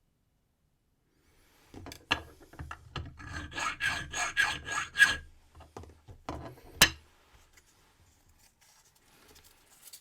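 A file rasping across a brass key blank while impressioning a key, the file taking down the marks the lock's wafers left on the blank. After a quiet start there is a quick run of about a dozen strokes, three or four a second. A few slower strokes follow, one of them sharp and loud, then only faint scraping near the end.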